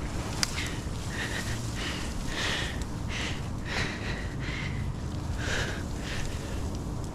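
A climber breathing hard in short, quick puffs while working up in a tree, with one sharp click about half a second in.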